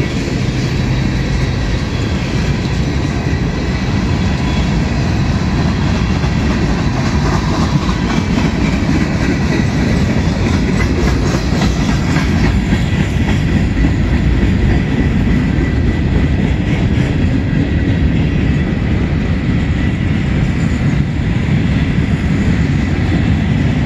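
Freight cars of a BNSF train rolling past close by on the climb up the Cajon Pass: a steady, loud rumble of steel wheels on rail.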